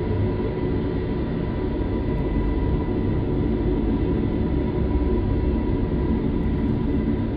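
Sci-fi UFO sound effect: a steady, dense low rumbling drone with faint steady hums above it, unchanging throughout.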